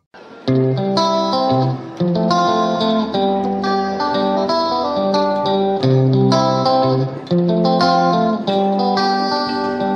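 Background music: a plucked guitar melody that starts about half a second in.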